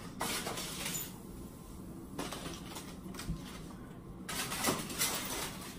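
Foil-covered baking pans being slid into an oven: three scraping, rustling slides of about a second each, with a dull knock in the middle.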